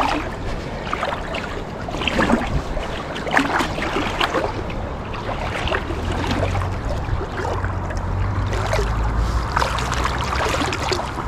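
Stream water sloshing and splashing irregularly around a wader's legs as he wades through hip-deep current, over the steady rush of the stream.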